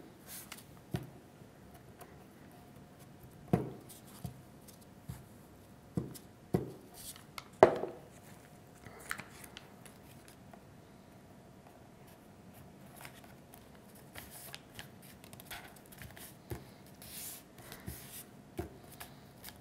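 Glue stick and paper cards handled on a tabletop: a few sharp taps and knocks, the loudest about eight seconds in, with light paper rustling in between.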